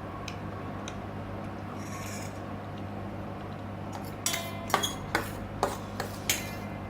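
An eating utensil clinking and scraping against a noodle bowl, with about six sharp clinks in the second half, over a steady low hum.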